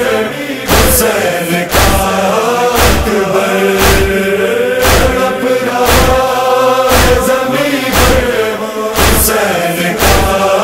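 Interlude of an Urdu noha: a chorus of voices holds a slow, mournful chanted melody over a steady heavy beat of about one strike a second.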